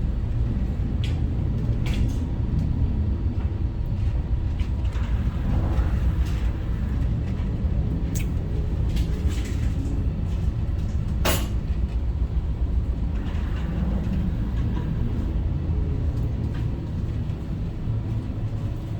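Strong wind buffeting the phone's microphone: a steady, heavy low rumble, with a few sharp knocks, the loudest about eleven seconds in.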